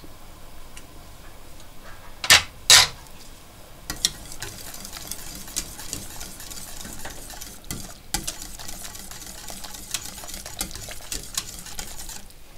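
Wire whisk stirring a thin sauce in a stainless steel pot: a steady scraping with quick light clicks of the wires against the metal, starting about four seconds in. Before that come two sharp knocks about half a second apart.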